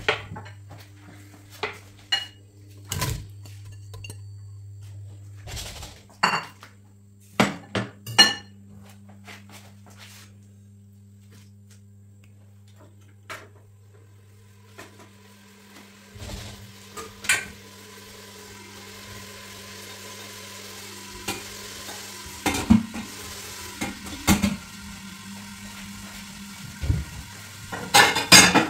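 Stainless steel pot, lid and kitchen utensils knocking and clinking as they are handled, many separate sharp knocks. A low electrical hum in the first half fades out, and a faint sizzle builds from about halfway.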